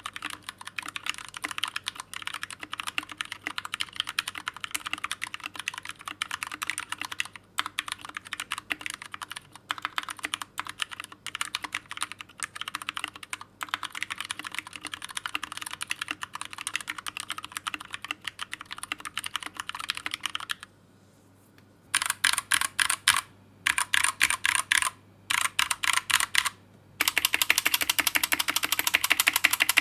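Fast typing on a Pressplay Apollo 61 mechanical keyboard with Gateron Brown tactile switches: a dense, continuous clatter of keystrokes. After a brief pause about two-thirds of the way in, it comes back as short runs of rapid keypresses.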